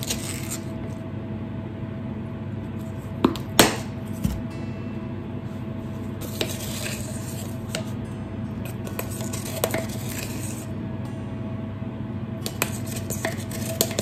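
A metal spoon clinking and scraping against tubs of bicarb and baking powder and a wire sieve, with two sharp clinks about three and a half seconds in and lighter clicks and rustles later. A steady low hum underneath.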